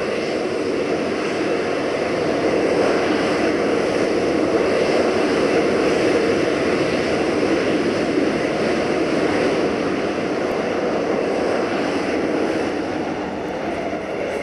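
Jet aircraft engine spooled up to high power: a loud, steady roar that swells over the first few seconds and eases a little near the end.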